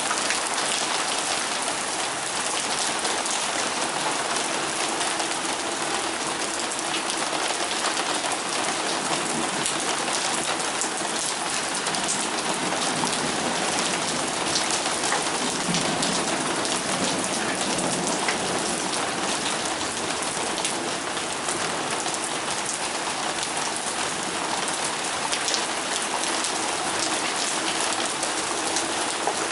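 Torrential downpour: heavy rain pouring steadily, with a dense patter of individual drops striking.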